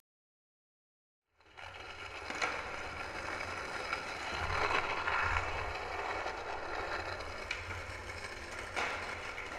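Skateboard wheels rolling on a smooth concrete parking-garage floor, a steady rumble that starts about a second and a half in, with a few sharp clicks of the board along the way.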